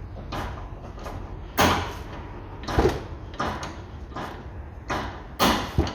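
Worn hand ratchet jumping and clicking in uneven strokes as it works a stabilizer-link nut loose, several strokes louder than the rest; the ratchet mechanism is slipping from wear.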